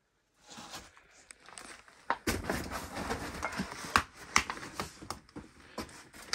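Irregular knocks, crunches and crinkling rustles of scattered trash and debris being disturbed. They start suddenly about half a second in, with the sharpest knocks near the middle and near the end.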